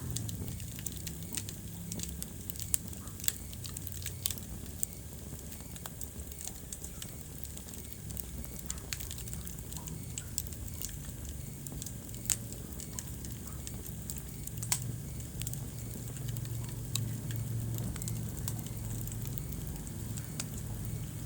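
Wood fire crackling in a fireplace: irregular sharp pops and snaps over a steady low rumble of the flames.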